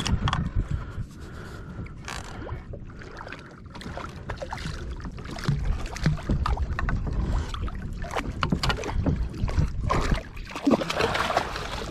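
Water splashing beside a plastic fishing kayak as a hooked ono (wahoo) thrashes at the surface and is gaffed, with scattered knocks and clicks of gear against the hull and wind rumbling on the microphone. The splashing is loudest near the end.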